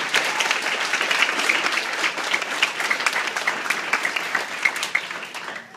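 Banquet audience applauding an award, a dense patter of many hands with a few sharp claps close by, dying away near the end.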